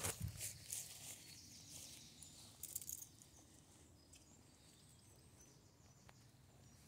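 Faint rustling and crunching of dry leaf litter during the first second or so, with a brief rustle again around three seconds in, then faint steady outdoor background.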